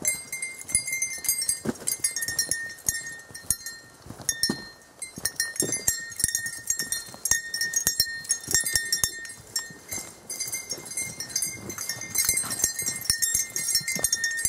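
Pack goats walking on a dirt trail: a steady light metallic jingle, with an occasional dull footfall.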